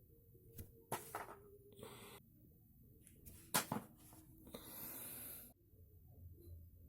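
A sheet of A4 printer paper being handled and folded: a few crisp crackles and taps, a short rustle, then a longer rub of about a second as a fold is pressed flat.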